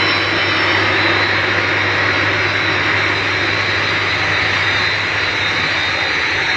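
EPE foam tube extrusion machine running steadily: a constant mechanical rush with a low hum and a thin high whine.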